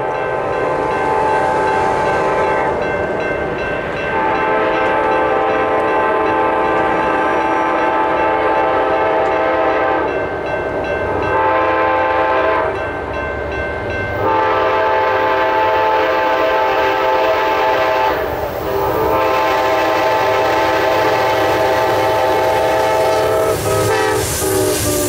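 Nathan K5LA five-chime air horn on an Amtrak P42DC diesel locomotive sounding for a grade crossing: long blasts with one short one, a chord of several tones. The last blast drops in pitch as the three locomotives pass, over a growing low diesel rumble and wheel noise.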